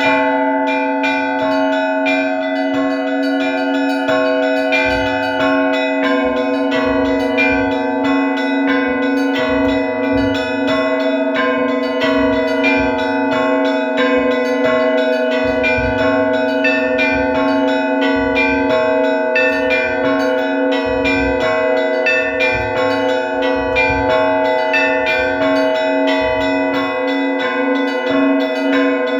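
Orthodox church bells rung together in a continuous pattern: quick strikes on the smaller bells over tones that ring on, with a deeper stroke about every two seconds.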